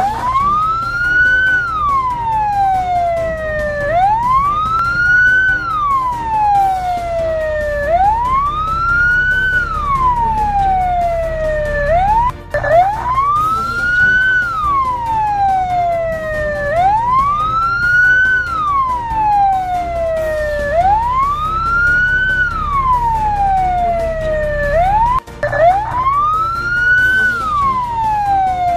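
Emergency vehicle siren wailing slowly, rising and falling about once every four seconds, over a steady low hum. It cuts out briefly twice.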